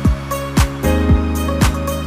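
Background music with a steady beat: a deep electronic kick drum about twice a second under sustained chords.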